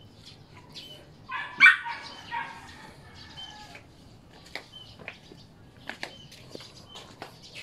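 A small dog, a Shih Tzu, giving a few short barks about two seconds in. Scattered light clicks and taps follow.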